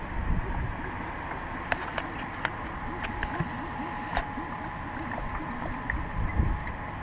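Antifreeze glugging out of an upturned can into a plastic coolant reservoir, a run of gurgles in the middle, over steady wind noise on the microphone, with a few sharp clicks.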